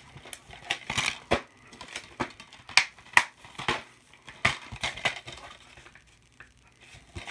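Irregular clicks, knocks and rustling of objects being handled and moved about, with a few sharper knocks about three seconds in.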